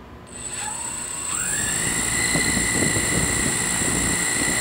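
Multirotor drone's electric motors and propellers spinning up: a whine that climbs in pitch for about a second and then holds steady, with a rushing of prop wash joining in.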